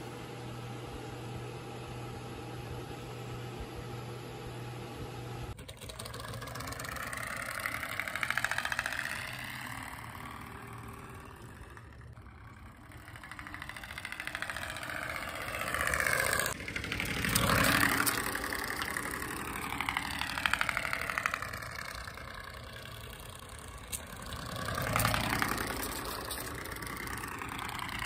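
A steady low hum to start, like a vehicle cabin on the move. Then, after a sudden change, a vehicle passes close by several times, its sound rising and falling in pitch as it comes and goes.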